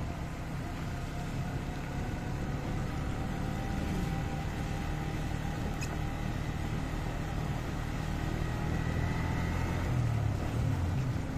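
Motorcycle engine running steadily while riding, with tyre noise on a wet road.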